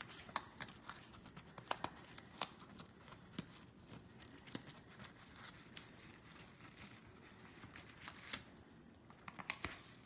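An Amazon parrot biting and tearing at a piece of cardboard with its beak: faint, irregular clicks and crunches, a little busier near the end.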